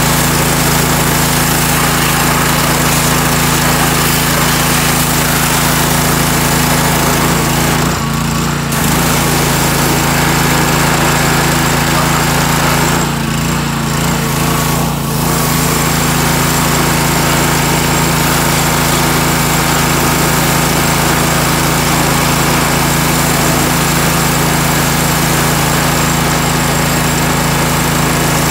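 Pressure washer's small gas engine running steadily under load, with the hiss of the high-pressure water spray over it. The spray hiss drops away briefly twice, about eight seconds in and again around thirteen to fifteen seconds in, while the engine keeps running.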